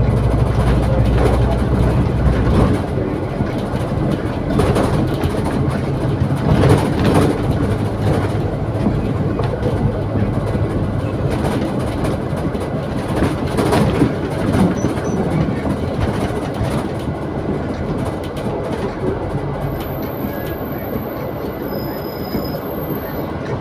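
Cabin noise on the upper deck of a moving double-decker bus: a steady engine and road rumble with rattles and a few knocks from bumps. The noise eases as the bus slows, and a thin high whine comes in near the end.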